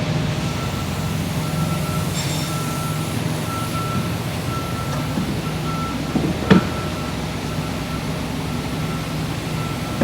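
A vehicle's reversing alarm beeping about once a second over a low, steady hum, with one sharp knock about six and a half seconds in.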